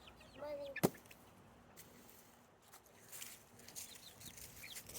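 Chickens clucking softly: a short call near the start, a sharp click about a second in, then a few faint high-pitched calls.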